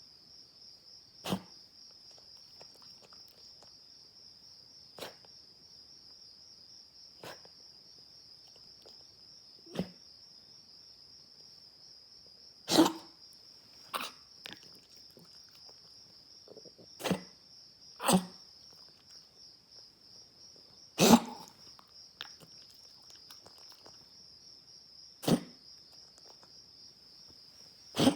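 A dog coughing in short, single sharp coughs every few seconds, about eleven in all, over a steady high chirring of night insects.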